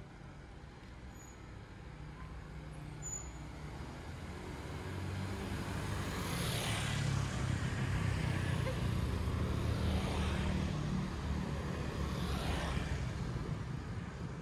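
Street traffic: a low engine rumble builds, is loudest in the middle, then eases, with three swells of tyre and engine noise as vehicles pass close by.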